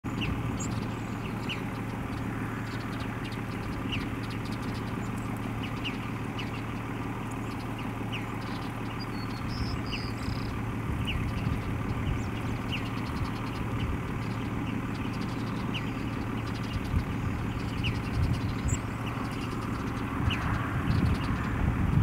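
Western bluebirds giving short, thin calls every second or two over a steady low hum.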